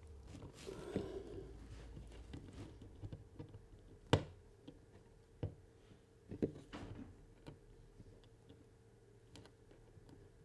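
Small, scattered metal clicks and scrapes as steel rail joiners are slid along model railway track rails onto a diamond crossing, with one sharp click about four seconds in.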